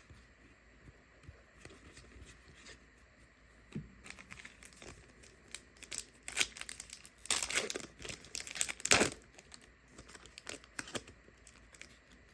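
Plastic wrapper of a trading-card pack being torn open and crinkled: quiet for the first few seconds, then a run of tearing and crinkling, loudest a little past the middle.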